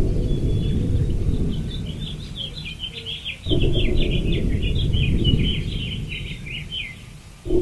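Small birds chirping in quick runs of notes throughout, over a low rumble that is loud at the start, fades, comes back suddenly about three and a half seconds in, and fades again.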